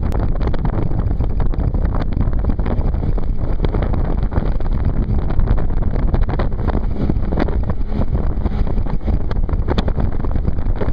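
Steady low rumbling wind noise on the microphone aboard a raft under way on the river.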